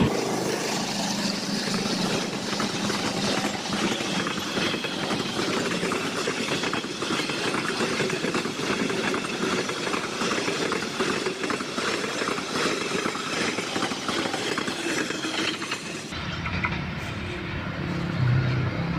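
Karachi Express passenger train rolling past, its wheels clattering over the rail joints above a steady rolling noise. The clatter stops about three seconds before the end, leaving a low rumble.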